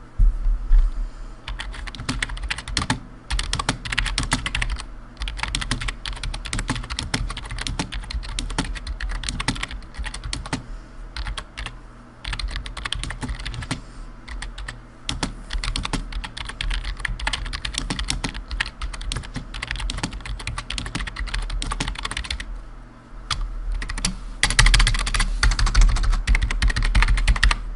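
Typing on a Sades Blademail mechanical keyboard with blue switches: a dense, continuous run of key clicks broken by a few short pauses. Near the end the clicking turns faster and louder.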